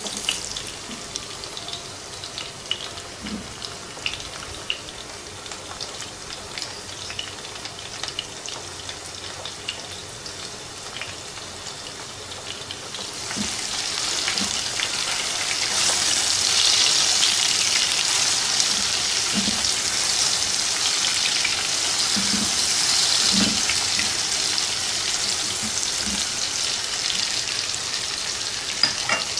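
Sliced onions, tomatoes and garlic sizzling in hot oil in a nonstick frying pan as they are stirred with a silicone spatula. The sizzle grows louder about halfway through.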